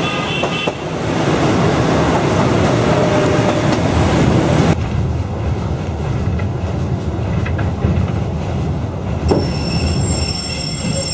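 Reunification Express passenger train running on the rails: a steady, loud rumble and rattle of wheels and carriages. About halfway through the sound suddenly turns duller, and near the end thin high wheel squeals come in.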